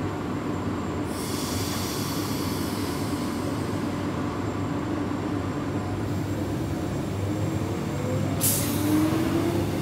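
Queensland Rail electric multiple-unit trains at a platform: a steady low rumble with a hiss, then a rising whine as a train starts to pull away, and a sudden burst of air hiss about eight seconds in.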